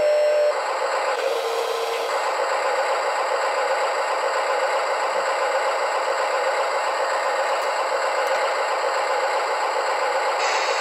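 Electronic engine sound from an RC model's sound module, running steadily through a small speaker with no bass. A short hiss comes about a second in and again near the end.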